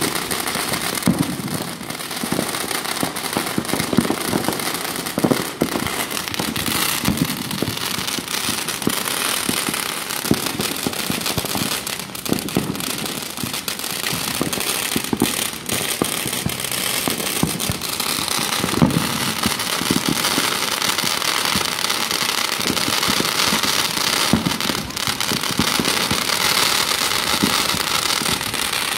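Consumer fireworks going off close by: a continuous crackling hiss, with frequent sharp pops and bangs throughout.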